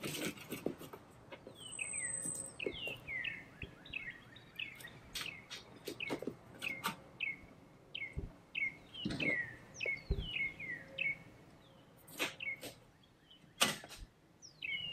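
A songbird singing a long run of repeated downward-slurred whistles, about two to three a second. Scattered knocks and light clatter come from the aluminum camp oven being handled.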